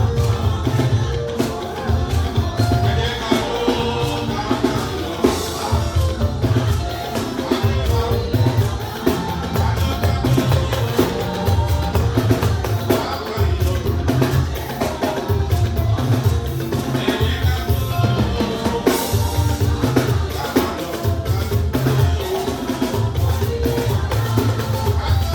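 Gospel band music with a drum kit, a heavy bass line in a steady groove, and singing.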